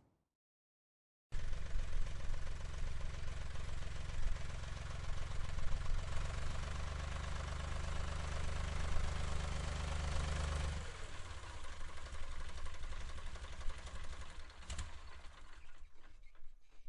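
Tractor engine running steadily at idle after a short silence, then shutting off about ten seconds in. It runs down with an irregular, fading clatter, and there is a sharp click near the end.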